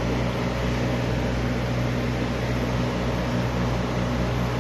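Steady low mechanical hum with a few held low tones, unchanging throughout.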